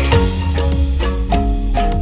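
Background music: a bright, struck melody over a steady beat.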